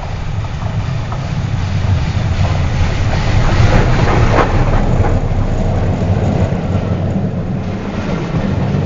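Steam-hauled train with the locomotive 61306 Mayflower going by. A heavy, low rumble swells to its loudest about four seconds in, with a few sharp knocks at the peak, then slowly eases as it passes.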